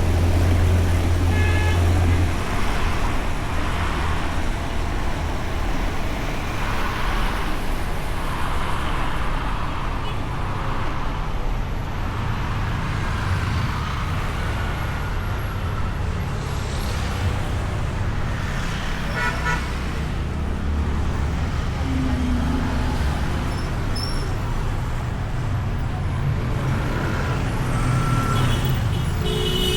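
Honda Beat scooter being ridden in traffic: its small single-cylinder engine runs under steady wind and road noise picked up by a bike-mounted camera, with other vehicles passing. There are a couple of brief horn toots, one about twenty seconds in and one at the very end.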